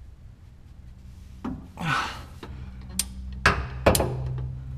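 A long wrench being heaved on a shock-mount bolt: a short strained grunt and breath, then three sharp metallic clicks about half a second apart.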